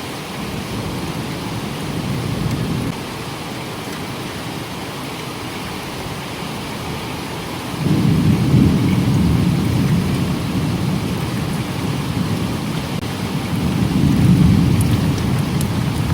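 Steady heavy typhoon rain with rolling thunder: a low rumble swells in the first few seconds, a louder, longer rumble breaks in about halfway through, and it swells again near the end.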